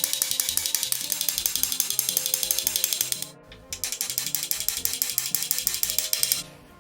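Background music with a fast clicking beat over a stepping bass line, dropping out briefly about three seconds in and again near the end.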